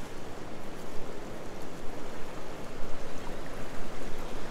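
Waves washing against the jetty's rocks: a steady rushing wash of surf.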